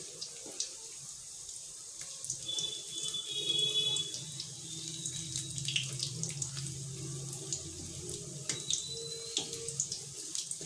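Baingan pakoras deep-frying in hot oil in a kadhai: a steady sizzle full of small crackling pops, with a few knocks and scrapes as a wooden spatula turns the fritters. A low hum swells in the background between about two and seven seconds in.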